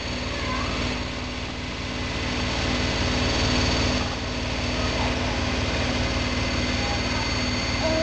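Front-loading washing machine spinning, a steady mechanical whirr with a fast, even low pulsing.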